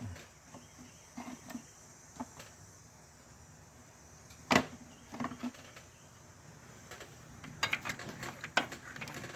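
Scattered light metallic clicks and knocks from a wrench working a tight starter mounting bolt. One sharp click comes about halfway through, and a run of quicker taps comes near the end.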